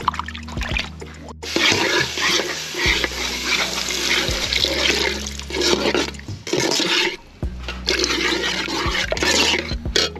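Water pouring and splashing into a plastic basin as a whole fish is rinsed by hand, in several gushes with short breaks.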